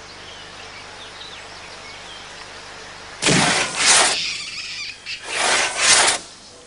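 Forest ambience with faint bird chirps, then a hand saw cutting through a log in two long strokes about two seconds apart, starting about three seconds in.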